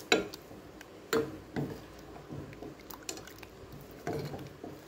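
Metal ladle stirring rice-flour dumplings in thickened milk in a metal pot: wet sloshing with about five sudden scrapes and knocks of the ladle against the pot, the loudest right at the start.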